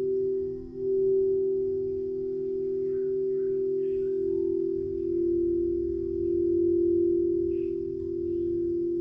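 Frosted crystal singing bowls played with a wand, giving long steady ringing tones. A bowl is sounded afresh about a second in, and a second bowl at a slightly different pitch takes over around five seconds in.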